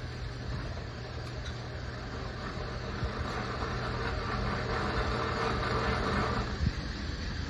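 Robotic calf feeder machinery running: a steady hum with a whirring noise that swells from about three seconds in and cuts off suddenly shortly before the end, as the powder feeds through and mixes.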